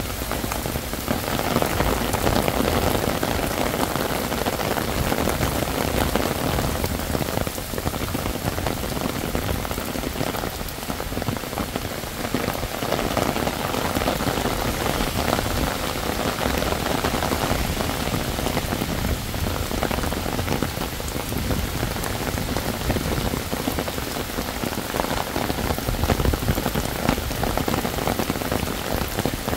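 Heavy rain falling, a dense, steady patter of countless drops that gets a little louder about a second in.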